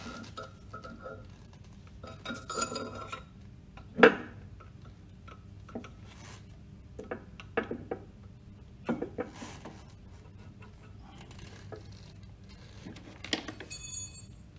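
Metal shaft-seal parts of a Grundfos NBS pump clinking and tapping against the shaft and housing as they are fitted. There is one sharp knock about four seconds in and a short metallic ring near the end.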